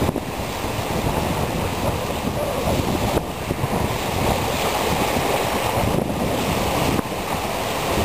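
Strong wind buffeting the microphone over choppy river water, with small waves lapping and breaking on a sandy shore.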